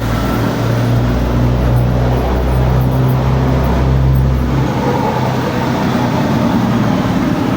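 Honda CD100SS motorcycle engine running steadily, its deepest low note dropping away a little past halfway.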